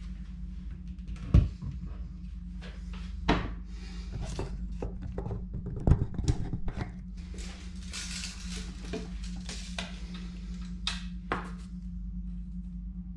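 A wooden shelf board being handled: clunks and knocks as it is lifted off its wall brackets and laid down on a plastic tool case, the loudest knock about six seconds in, with rustling handling noise and a couple of light clicks near the end, over a steady low hum.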